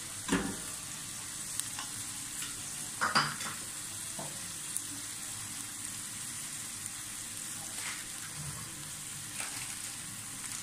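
Chopped onions, chillies, capsicum and tomato sizzling steadily in ghee in a metal frying pan. A spoon knocks against the pan just after the start and again, louder, about three seconds in.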